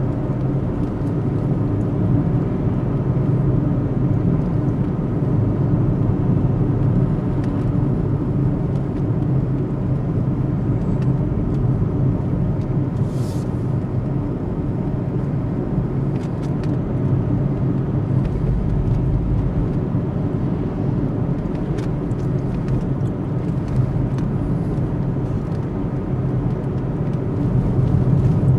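Steady engine and tyre rumble heard from inside a car's cabin while it drives along at an even speed.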